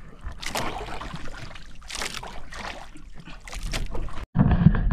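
Water splashing and sloshing against a small outrigger boat in irregular bursts. The sound cuts off abruptly near the end, and louder low thuds follow.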